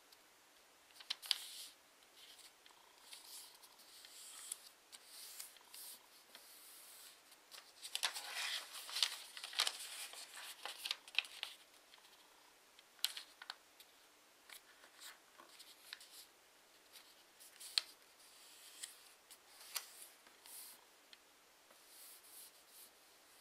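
A sheet of origami paper being folded and creased by hand: irregular rustling with short, sharp crackles as fingers press and slide along the folds. It is busiest from about eight to eleven seconds in.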